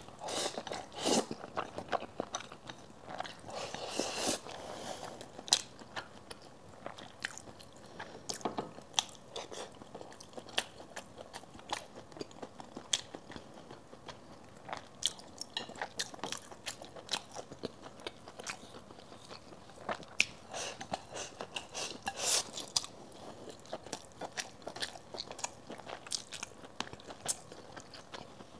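Close-miked chewing and smacking of a person eating rice and braised pork belly with chopsticks, with many short sharp clicks throughout, thickest near the start and again about twenty seconds in.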